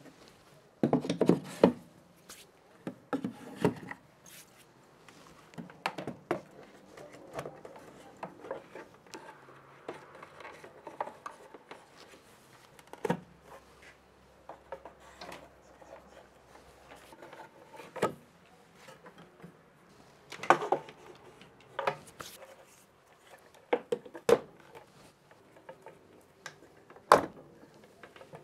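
Scattered clicks and knocks of hard plastic cordless tool batteries and chargers being slid onto and set against a plywood wall unit, with softer rubbing as charger cables are pulled and fed along the wood.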